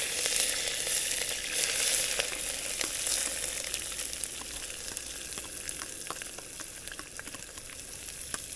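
Food frying in hot oil in a pan: a loud sizzle that slowly settles into a quieter, steady frying hiss, with scattered small pops and crackles.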